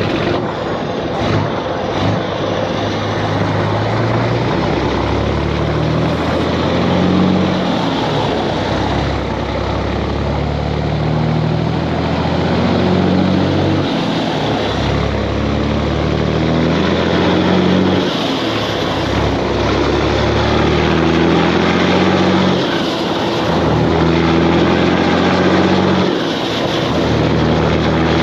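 Cummins X15 diesel of a Kenworth W900 semi truck running under way, heard with road and wind noise. Its engine note rises and falls in steps several times.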